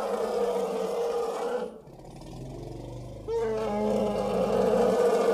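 A loud, rough roar-like sound effect that breaks off under two seconds in, leaving a quieter low hum, then starts again after about three seconds.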